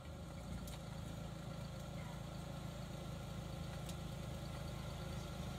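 Toyota Paseo's small four-cylinder engine idling steadily.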